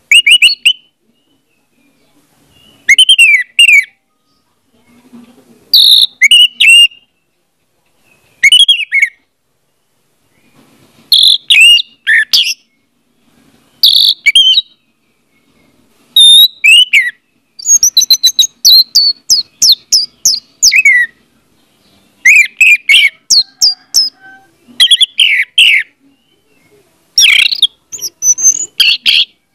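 Orange-headed thrush singing: about ten short phrases of quick, varied whistled notes that sweep up and down in pitch, with pauses of a second or two between them. The longest run comes a little past the middle.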